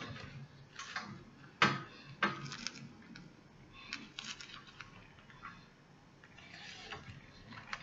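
Hands sewing hair wefts onto a wig cap on a mannequin head with needle and thread: soft rustling and scattered light clicks, with one sharper tap about a second and a half in.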